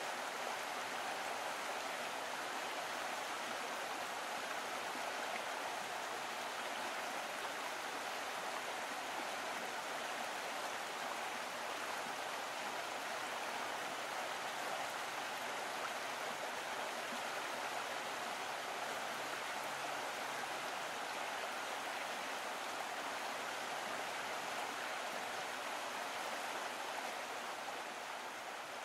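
Steady rush of a shallow stream flowing over stones, an even water noise with no bird calls.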